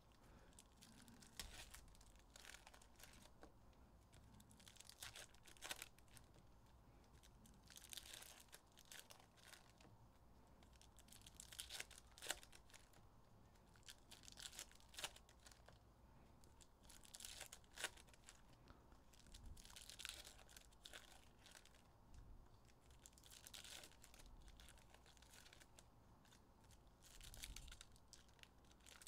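Faint crinkling and tearing of Panini Illusions football card pack wrappers being opened, and the cards handled, with scattered light ticks and swishes.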